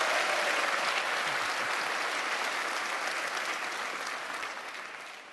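A large audience applauding: dense, steady clapping that slowly dies down toward the end.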